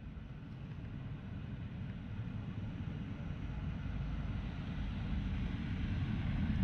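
Street ambience: a low traffic rumble that grows steadily louder.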